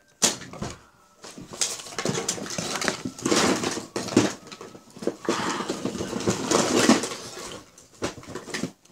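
Small hard objects clattering and rustling as they are rummaged through and handled, with irregular sharp knocks and clicks.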